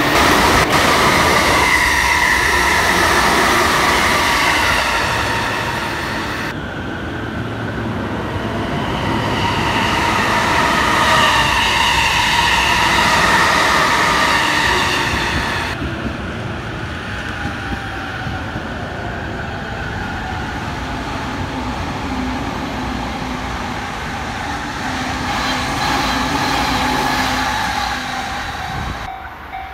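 JR electric trains running past station platforms in three back-to-back clips: first a Keihin-Tohoku Line commuter train, then, about six seconds in, an E255 series limited express, then, about sixteen seconds in, an E259 series Narita Express. Wheels rumble on the rails under a rising and falling motor whine.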